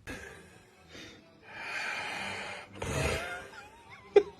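A man snoring: several noisy snoring breaths, the longest about a second long a little after the middle. Near the end a brief wavering whistle-like tone, then a sharp knock, the loudest sound.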